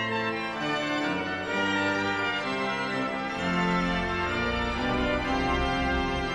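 Brass quintet music: sustained, organ-like chords with a low bass line that comes in about three and a half seconds in.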